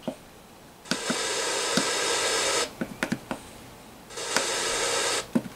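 FM radio in a THPOPLETE K11 alarm clock giving two bursts of static hiss through its small speaker as it is tuned between stations, with sharp clicks from the buttons being pressed. The static means the signal is weak and no station is coming in; reception is poor without an aux cord plugged in as an antenna.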